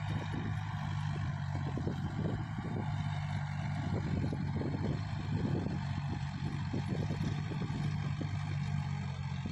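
Tractor engine running steadily under load while pulling a plough through a field.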